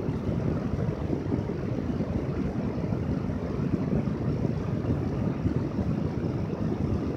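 Steady low rushing noise that does not change, with no distinct event standing out.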